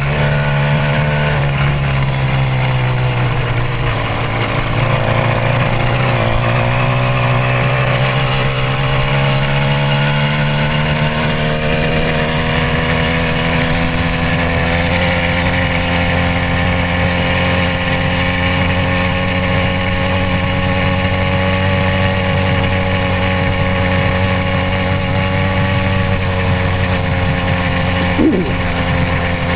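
66cc two-stroke motorized bicycle engine running as the bike is ridden. Its pitch dips a few seconds in, then climbs slowly and holds steady.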